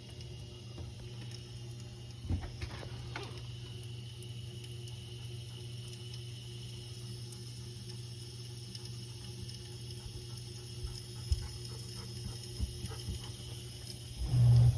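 Miele dishwasher running with a steady low hum, the new water intake valve working after replacement, with a few light knocks and a louder short bump near the end.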